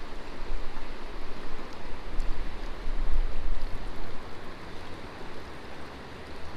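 Steady rush of flowing river water, with an uneven low rumble of wind on the microphone.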